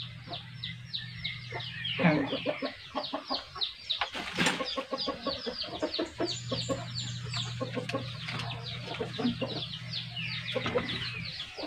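Chickens in the background: a steady run of quick, high, falling peeps, like chicks, with clucking. A few knocks and clicks between about two and five seconds in come from the brass airgun barrel being handled and fitted.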